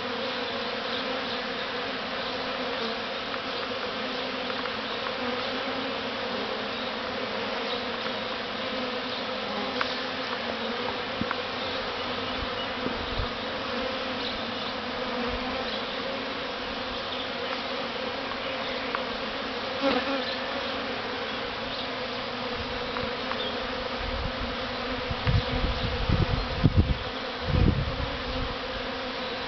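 Dense, steady buzzing of a large honeybee swarm settling into a hive box, a hum with a clear pitch made by thousands of wingbeats. A few low rumbles come through near the end.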